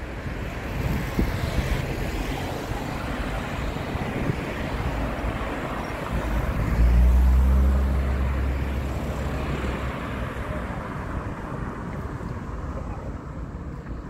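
Motor vehicle engines running in the open with wind buffeting the microphone. One engine passes close about seven seconds in, with a deep steady note that is the loudest moment, then fades.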